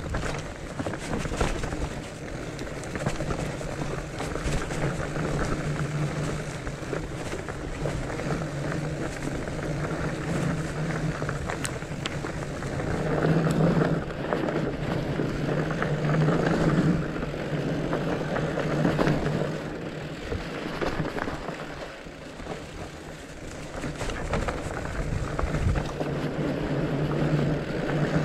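Mountain bike riding fast down a leaf-covered dirt trail: tyres rolling over dry leaves and dirt, the bike rattling over bumps, with wind rushing over the microphone. The noise swells louder for a few seconds partway through and again near the end.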